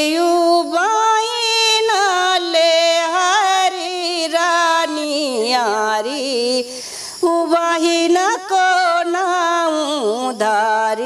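A woman singing a Rana Tharu teej folk song solo, unaccompanied, in long, sliding, ornamented lines, with a short breath pause about seven seconds in.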